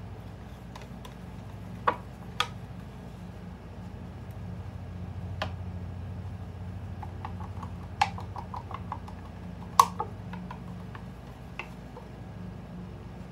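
Sharp taps and clicks of a wooden tongue depressor against a plastic cup as resin is scraped out of it into a silicone mold, with a quick run of small ticks midway. A steady low hum lies underneath.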